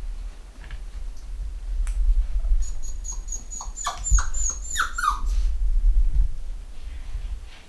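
Cockapoo puppy whimpering: a run of short, high squeaky cries and whines from about two and a half to five and a half seconds in, over a low rumble.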